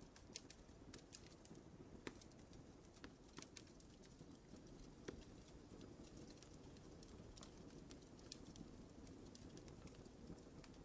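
Wood fire burning in a fireplace, faint: a steady low rush of flame with irregular small crackles and a few sharper pops.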